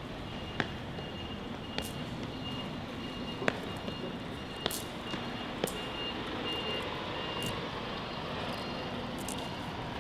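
City street traffic noise with a high electronic beep repeating about twice a second, and a few sharp clicks in the first half.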